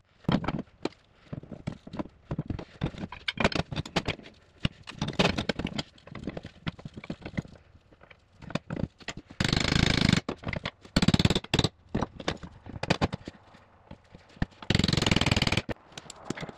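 Hammer blows and metal clinks, irregular and fast, from driving U-joint caps into a driveshaft yoke. Three stretches of about a second each are dense with rapid knocking, around the middle and near the end.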